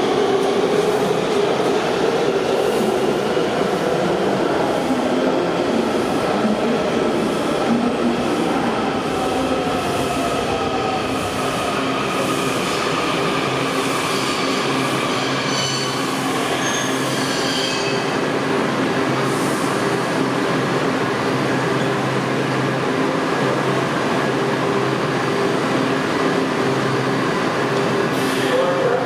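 Kawasaki 7000-series subway trains in an underground station: one pulls out and the next rolls in along the platform and brakes to a stop, with wheel squeal from about halfway through. A steady hum follows as the train stands at the platform.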